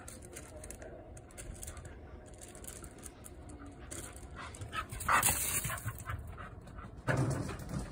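Shiba Inu dog making soft dog sounds while playing with a ball on gravel, with small crunching clicks from the gravel. Two louder scraping noises come about five and about seven seconds in.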